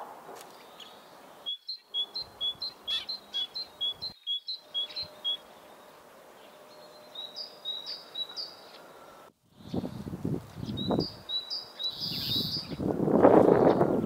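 A great tit singing its two-note song, a higher and a lower note alternating in quick runs of several phrases. From about two-thirds of the way in, cold wind buffets the microphone in low gusts, loudest near the end.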